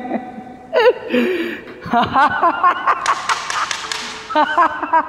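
A person's voice making sounds without clear words, with a breathy, noisy stretch about three seconds in.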